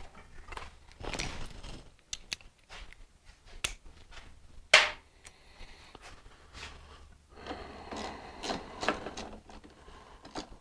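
Scattered clicks and light knocks of hand tools as bolts on a motorcycle's front fork fender mounts are tightened, with one sharper click about five seconds in.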